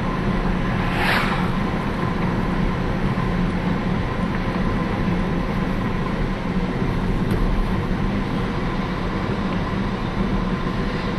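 Steady vehicle running noise, a low hum with road or engine haze, and a brief rushing sound about a second in; no siren tone is heard.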